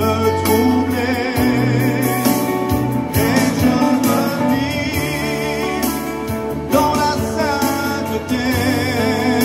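A man singing a French Christian hymn through a microphone, holding notes with vibrato, over a steady instrumental accompaniment, amplified through a PA.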